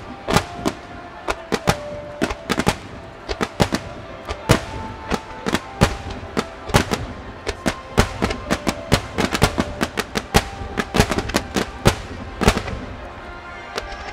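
Fireworks bursting in rapid succession, many sharp bangs a second with crackle between them, over music with held notes.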